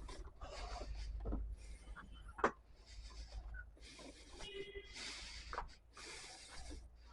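Faint rustling and scattered light clicks and knocks, with a low steady hum underneath and a brief faint tone about halfway through.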